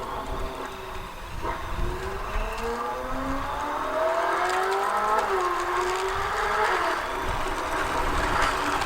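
LaFerrari sports-car engine sound revving up, its pitch climbing steadily for a few seconds, then dropping sharply as if shifting gear about halfway through and running on at a steadier pitch.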